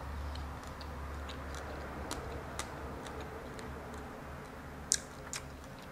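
Close-miked eating sounds: scattered soft clicks and ticks of chewing and of a fork picking at a whole fried mojarra, with a sharper click and a second one about five seconds in, over a low steady hum.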